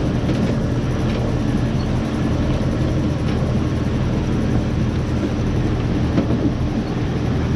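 Ford 9600 tractor's 6.6-litre six-cylinder diesel engine running steadily under light load while pulling a harvest trailer, with a few faint knocks over the top.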